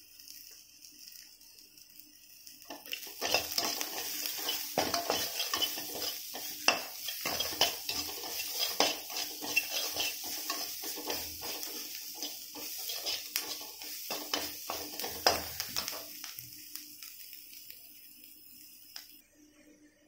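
Chopped onions sizzling in oil in a metal kadhai. From about three seconds in, a metal spatula scrapes and clinks against the pan as they are stirred. The stirring stops about sixteen seconds in, leaving only the sizzle, which fades.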